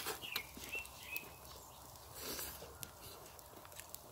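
Small bird chirping in short, slightly falling notes, several times, with a few sharp clicks in between.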